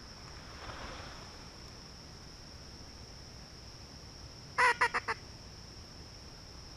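Four quick, loud honking calls from a goose or duck, spaced well under a second apart about two-thirds of the way through, over the steady high buzz of insects.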